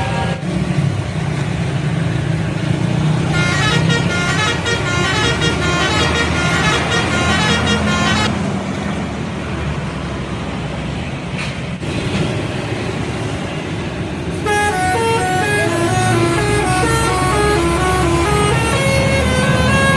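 Indonesian bus telolet horns, multi-tone air horns playing a quick tune of stepping notes: once from about three seconds in for some five seconds, and again from about fourteen seconds on. The bus engine runs underneath throughout.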